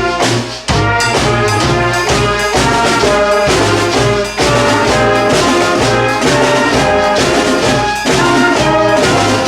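Street brass band playing a tune together: trombones and trumpets over a steady drum beat, with a brief break about half a second in.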